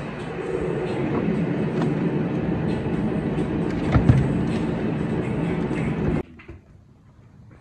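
Steady mechanical running noise with a low hum, with a few light clicks and knocks as wiring and trim are handled under the dash, the loudest about four seconds in. The running noise cuts off abruptly about six seconds in.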